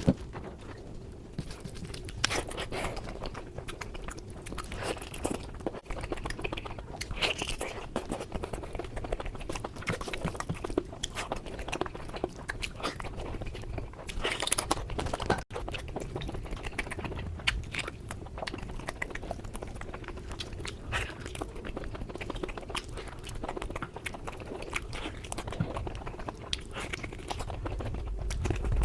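A person eating: chewing and biting food, with many irregular crunches and clicks. There is a sudden brief break about halfway through.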